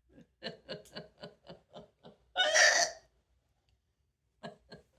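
A person laughing in a rapid run of short voiced bursts, about five a second. About halfway through comes one loud breathy burst, the loudest sound here, and then a few more short laughs near the end.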